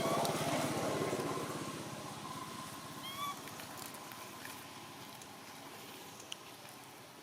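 A small motor vehicle engine, likely a motorcycle, passing and fading away, with a short honk about three seconds in.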